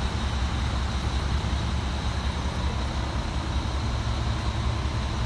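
Mack MR garbage truck's diesel engine running steadily, a deep even rumble with a faint steady high whine above it.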